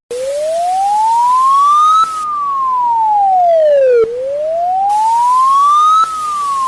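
Emergency alert siren in a slow wail. A single clear tone climbs in pitch for about two seconds, then slides back down for two, over and over.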